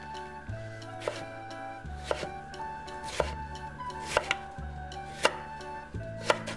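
Kitchen knife chopping Korean radish on a wooden cutting board: sharp, evenly spaced knocks about once a second.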